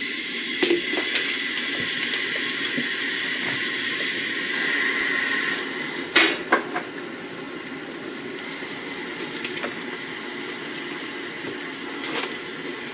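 Kitchen tap running in a steady stream for rinsing vegetables, with a faint whistle in the flow that stops about halfway through as the stream changes. A few light knocks of dishes, the loudest just after the change.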